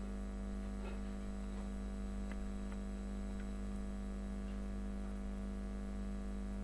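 Steady electrical mains hum with a stack of even overtones, the strongest a low buzz. A few faint ticks come in around the middle.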